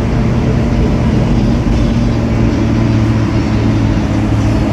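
2008 ADL Enviro 300 bus with a ZF Ecomat automatic gearbox, its engine and drivetrain running steadily under way, heard from inside the passenger saloon: a loud, even drone.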